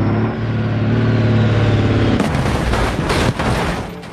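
Heavy vehicle engine running with a loud, steady low drone. About two seconds in it turns into a rougher, crackling rattle.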